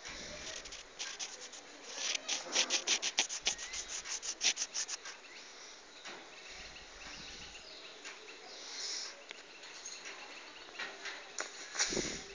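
A cat licking its paw and washing its face: a run of quick, rhythmic licks, about five a second for a few seconds, with softer licking around them.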